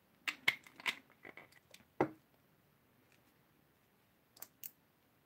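A quick run of small, sharp clicks and taps from hands handling hard acrylic nails and nail-work tools, lasting about two seconds with the loudest tap at its end, then two more clicks near the end.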